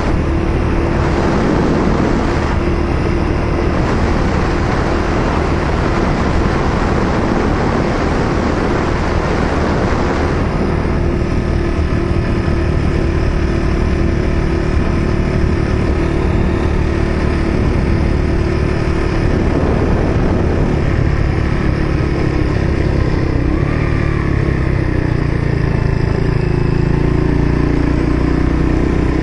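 Yamaha XT250 dual-sport motorcycle's single-cylinder four-stroke engine running while the bike is ridden at a fairly steady speed, its note holding nearly level throughout.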